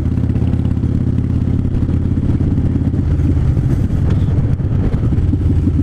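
Harley-Davidson V-twin motorcycle engine running at a steady cruise while the bike is ridden.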